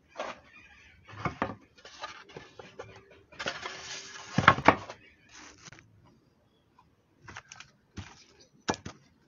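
A wooden board and loose wood shavings being handled on a carving bench: rustling of shavings and a string of knocks and clicks of wood on wood. The loudest is a rushing scrape with a sharp knock about four and a half seconds in, followed by a few scattered taps.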